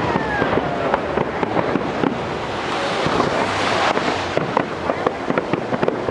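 Fireworks display: dense crackling and popping of many bursting shells, with a whistling tone falling in pitch near the start.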